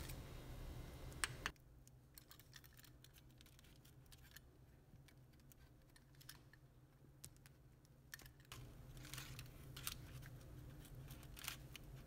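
Near silence: low room hum with a few faint clicks and handling noises.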